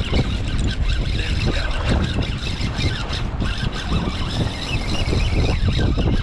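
Strong wind blowing across the microphone: a steady, gusting low rumble with a hiss above it.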